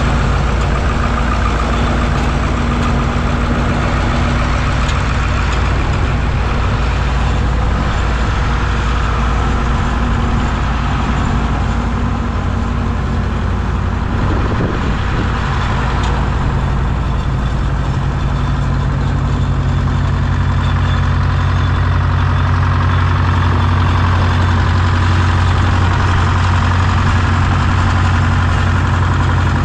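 Two Oliver tractors' diesel engines idling steadily together: the 2255's Caterpillar 3150 V8 and the 1950's two-stroke Detroit Diesel 4-53. The low drone grows stronger over the last third.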